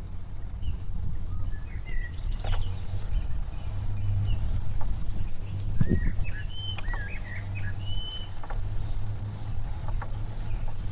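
Several wild songbirds chirping and whistling in short calls through the middle of the stretch, over a steady low rumble from riding a bicycle along a paved path. There is a brief thump about six seconds in.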